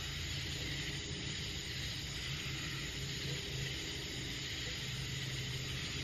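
Crickets and other night insects chirring steadily in a summer night chorus, over a low, steady rumble.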